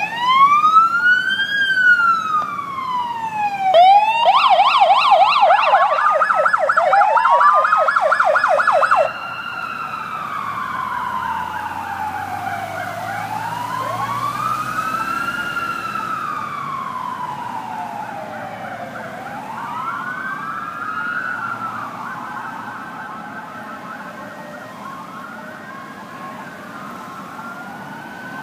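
Police car sirens passing: a wail rising and falling, then a rapid yelp from about four to nine seconds, the loudest part. After that several wailing sirens overlap out of step and grow fainter near the end.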